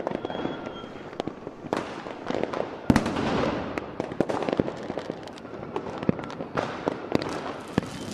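Fireworks going off: a constant run of bangs and crackles from bursting shells and firecrackers, with one louder bang about three seconds in.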